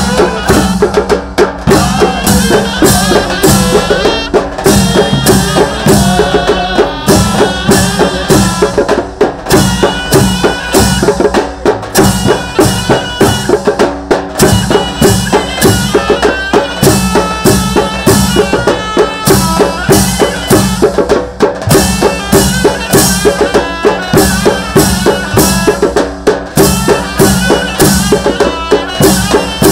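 Ottoman mehter band playing: davul bass drums beating a steady rhythm with zil cymbal clashes, under a held melody on zurnas.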